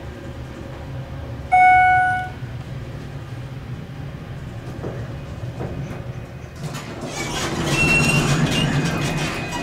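Schindler elevator car arriving at a floor: a low steady hum of the ride, a single loud electronic arrival chime under a second long about a second and a half in, then over the last few seconds the doors sliding open as louder noise from the landing swells in.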